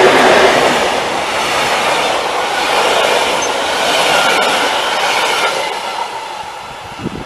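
Passenger train hauled by an electric locomotive passing close at speed: the rush and rumble of the coaches' wheels on the rails, loudest just as the locomotive goes by at the start, then fading as the last coach pulls away. A short knock comes near the end.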